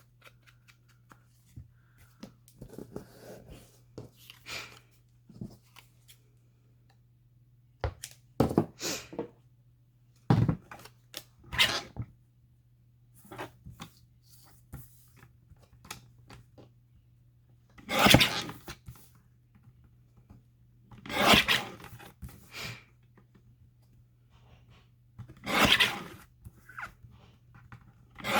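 Paper and card being handled on a work table: separate rustles, slides and rubs, several louder ones in the second half, over a faint steady low hum.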